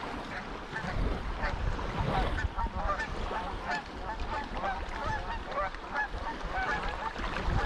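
A flock of geese honking, many short calls coming quickly and overlapping, over low wind and water noise.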